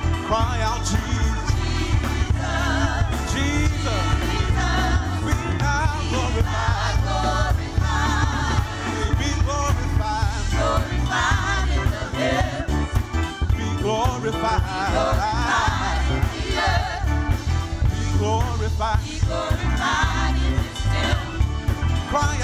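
Gospel music: a praise team singing with a band, wavering sung voices over a steady, heavy bass.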